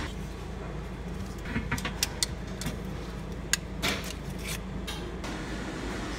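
Metal tongs clicking and clattering against a plastic tray and a paper plate as a cinnamon roll is lifted out of a display case, a run of sharp clicks in the middle, over a steady low hum.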